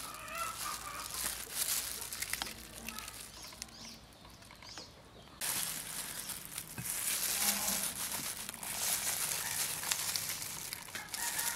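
Soft food-handling sounds: plastic-gloved hands crinkling and lettuce leaves rustling while fish and rice noodles are wrapped, with small scattered clicks. Faint chicken clucks come in briefly twice in the background.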